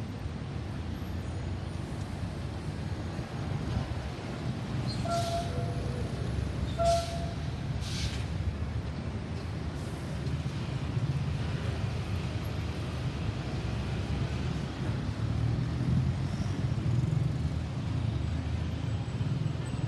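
Road traffic running past: a steady low rumble of engines and tyres, with two short beeps about five and seven seconds in and a few brief hisses. No siren is sounding.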